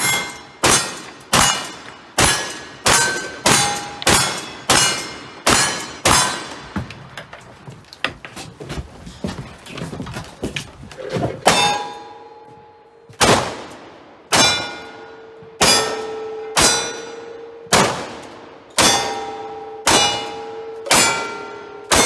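A string of about nine rifle shots, one every second or less, then a gap of a few seconds and a second string of about ten revolver shots a second or so apart. Each shot is followed by the clang of a steel target being hit, and in the revolver string the target rings on until the next shot.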